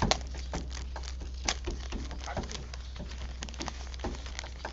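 Irregular crackling and rustling of plant packaging being handled and unwrapped, a quick run of sharp clicks, over a steady low hum.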